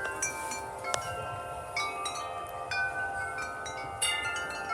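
A group of tubular wind chimes ringing in gusty wind: many overlapping notes struck at irregular moments and left ringing on. Fresh clusters of strikes come about a second in and again about four seconds in.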